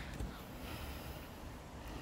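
Faint rustling of a hand digging in loose garden soil around a small carrot, over a low, uneven rumble.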